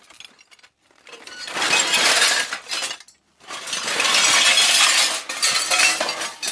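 A woven plastic sack is dragged off a pile of scrap metal sheets and parts: the sack rustles while the metal pieces scrape and clink against each other. The noise comes in two long spells, the first about a second in and the second from about three and a half seconds on.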